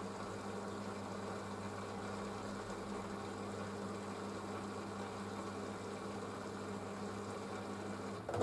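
Panasonic front-loading washing machine running mid-way through its wool cycle: a steady, unchanging machine hum.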